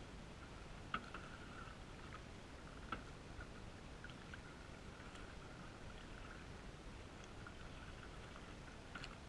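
Canoe paddle strokes with water splashing and dripping, muffled by a waterproof camera housing, with a few small sharp knocks about a second in, about three seconds in, and near the end.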